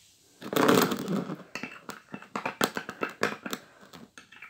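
A thin stick stirring shaving foam and glue in a small stainless-steel bowl. A denser stretch of scraping noise comes about half a second in, then a quick run of light clicks and taps as the stick knocks against the bowl.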